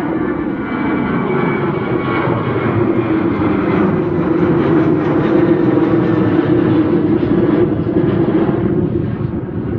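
Boeing 737-800's twin CFM56-7B turbofan engines at climb power, heard from the ground as the jet climbs away after takeoff: a loud steady rumble with a droning hum in it, at its loudest in the middle and easing off slightly near the end.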